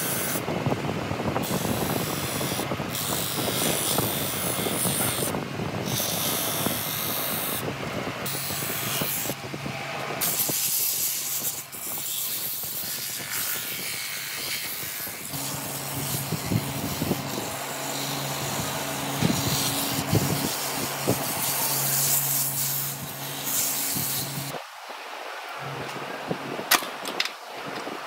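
An electric power tool working wood: a steady motor hum under a rough, continuous rasping, which eases off near the end with a few sharp knocks.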